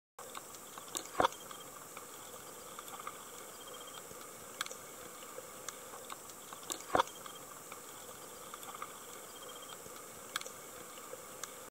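Underwater ambience from the footage's own sound: a steady hiss with scattered sharp clicks, two louder ones about a second in and about seven seconds in.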